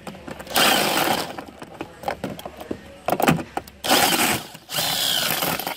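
Cordless power driver with a socket backing out a long bolt, running in short bursts: a long run near the start, a brief one in the middle, and another long run near the end.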